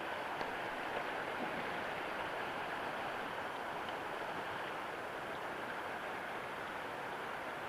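Fast river current rushing through a shallow rapid over rocks: a steady, even whitewater rush.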